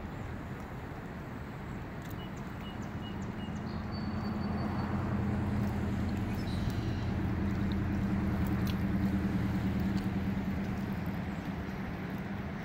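Waves on the lake washing steadily, with wind. A low, steady drone swells up about four seconds in and fades near the end, and a few faint high chirps come through early on.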